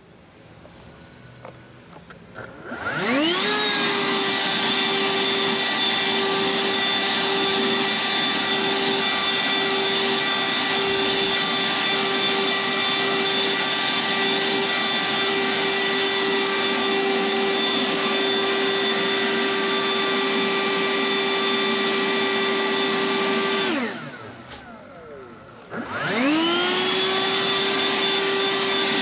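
Toro 60V Flex Force cordless leaf blower spinning up with a rising whine a couple of seconds in, then running steadily at full power: a high fan whine over a loud rush of air. Near the end it winds down with a falling whine and spins back up again.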